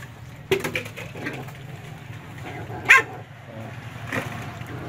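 Puppies jostling at a shared food bowl, giving a few short yelps and whines; the loudest is a brief high yelp about three seconds in.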